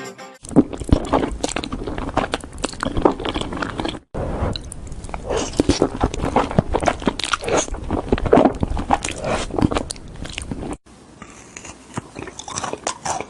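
Close-up biting and chewing of crunchy food, a dense run of crisp cracks and crunches. It cuts off abruptly twice, about four seconds in and near eleven seconds, and starts again each time, the last part quieter.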